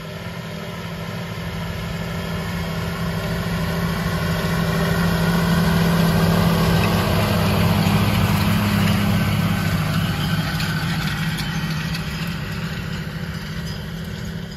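Diesel engine of a John Deere tractor running at a steady speed, growing louder toward the middle and fading again as it passes.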